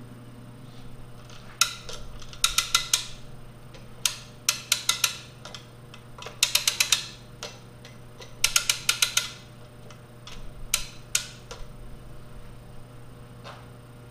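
Hand-crank winch of a Sky Hook shop crane ratcheting as it hoists a load. The clicks come in four quick bursts of five or six each, with pauses between and a few single clicks.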